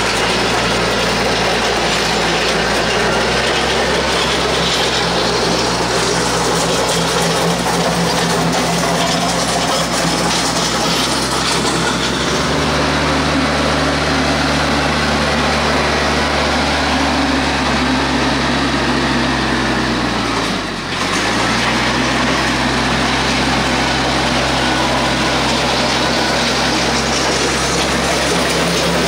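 TYM compact tractor's diesel engine running steadily under load while dragging a land plane over gravel. The engine note shifts about twelve seconds in, and about two-thirds of the way through it dips briefly and recovers.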